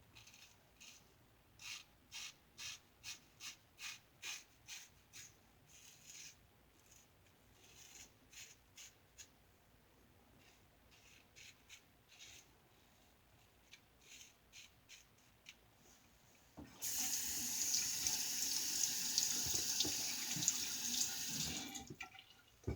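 Single-edge safety razor scraping through lathered stubble in a quick run of about nine short strokes, then scattered lighter strokes. About three-quarters of the way in, a tap runs steadily for about five seconds and then shuts off; it is the loudest sound here.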